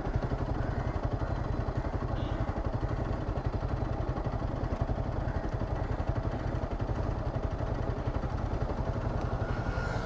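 Motorcycle engine running at low revs with a steady, even pulsing beat.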